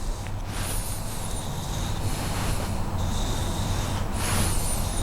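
Carving knife blade swiped along a strop, three strokes about two seconds apart, with a steady low hum underneath.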